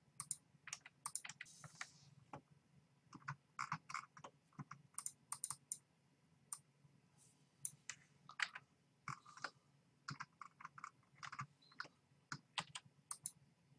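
Faint, irregular clicking of a computer mouse and keyboard, several clicks a second in uneven bunches.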